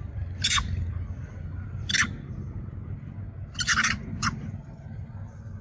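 A young macaque giving short, shrill squeals while an adult pins it to the ground, spaced a second or so apart with a quick run of them near the end.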